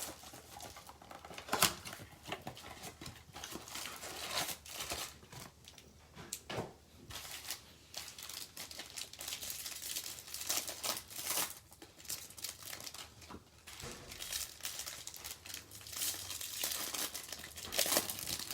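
Plastic wrapping crinkling and tearing as a baseball card blaster box and its foil card packs are torn open by hand, with a couple of sharper snaps of the wrapper.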